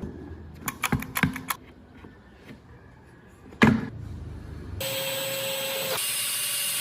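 Workshop tool noise: a few light clicks and knocks, one sharp knock, then a steady mechanical hiss with a faint held tone that starts suddenly and runs for about two seconds.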